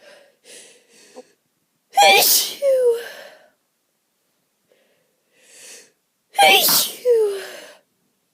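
A person sneezing twice, about four seconds apart, each sneeze set off by an allergy-itchy nose and preceded by short, quieter catching breaths.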